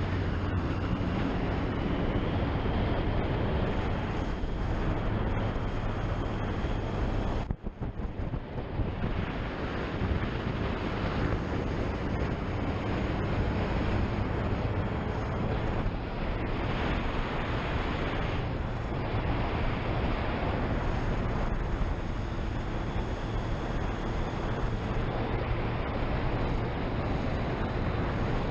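Triumph Street Triple's inline three-cylinder engine running at road speed, mixed with heavy wind rush on the helmet-mounted microphone. The sound drops out for a moment about a quarter of the way in, then carries on steadily.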